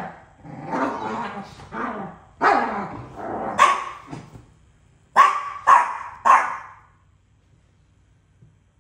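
Two dogs squabbling over a toy: drawn-out growls and grumbles in the first few seconds, then three quick sharp barks about five to six and a half seconds in.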